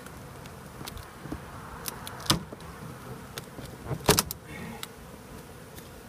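Honey bees buzzing steadily, with sharp clicks and knocks from a small metal tool prying at wooden window trim. The two loudest knocks come about two and four seconds in.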